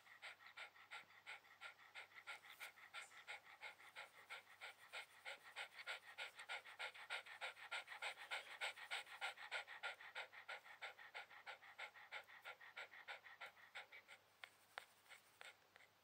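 Shiba Inu panting in a quick, even rhythm, about five pants a second, loudest around the middle and fading near the end.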